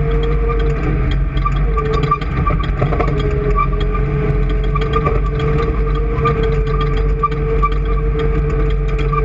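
An engine running steadily at an even speed, with a constant low hum, a held whine that drops out briefly about a second in, and rapid light ticking throughout.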